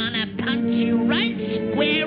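Cartoon background music: held notes with quick sliding runs in pitch several times.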